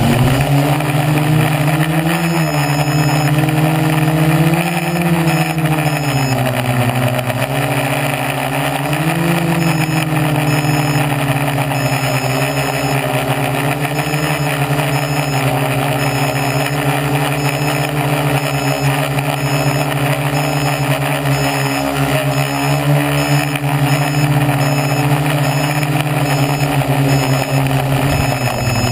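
Hobbyking SK450 quadcopter in flight, heard from on board: four Turnigy Gold 1100kv brushless motors driving 10x4.5 props make a loud, steady buzzing hum. Its pitch rises and falls with throttle during the first ten seconds or so, then holds steady.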